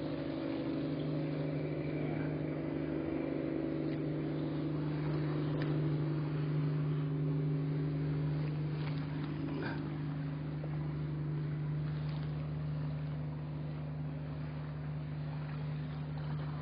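A boat's engine running steadily at one constant pitch, a low even hum, with a few faint clicks over it.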